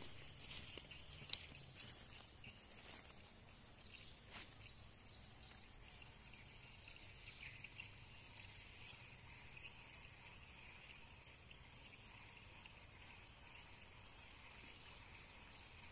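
Steady high-pitched chorus of insects, with a couple of faint sharp ticks in the first few seconds.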